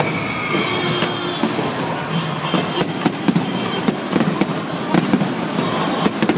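Fireworks going off: many sharp crackling pops and bangs over a steady hiss, the crackle growing denser about halfway through.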